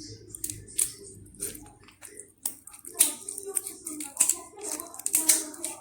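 Shell of a spiny lobster being cut open, a quick irregular series of crisp snips and cracks.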